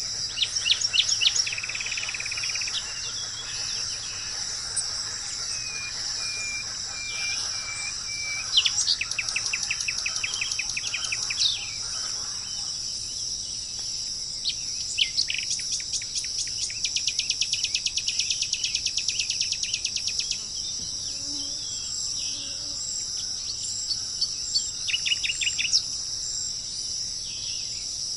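Tropical forest ambience: a steady high-pitched insect drone with several birds calling over it in quick series of chirps and trills, the longest about halfway through, and a run of short even whistled notes early on.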